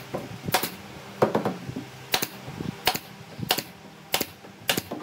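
Pneumatic brad nailer firing nails into a wooden cabinet: about seven sharp shots, roughly one every two-thirds of a second.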